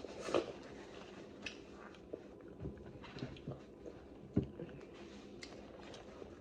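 Eating sounds: scattered small clicks and soft wet chewing noises as seafood is eaten, with a louder crack or click about a second and a half in and another about four and a half seconds in.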